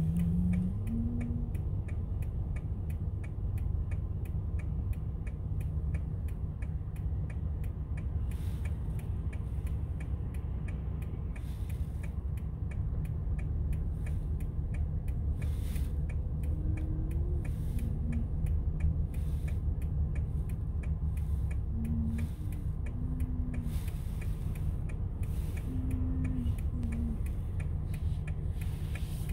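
A car's turn-signal indicator ticking at a steady, even rate inside the cabin, over the low rumble of the car idling at a stop.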